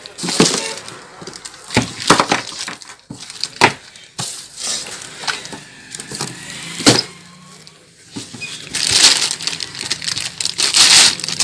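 A ceiling fan's cardboard box being opened and its packed parts handled: scattered knocks and clacks of cardboard and plastic, with a longer rustle of packaging near the end.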